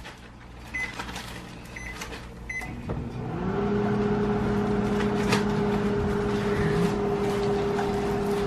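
Keypad of a Panasonic Genius Sensor 1250 W microwave oven beeping three short times as it is set, then about three seconds in the oven starts running with a steady hum.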